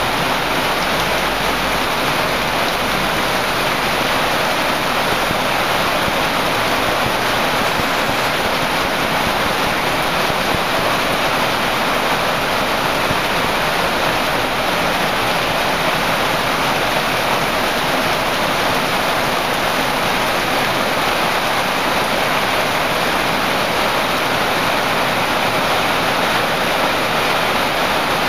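Heavy rain pouring down in a strong storm: a loud, dense, even hiss that holds steady without letting up.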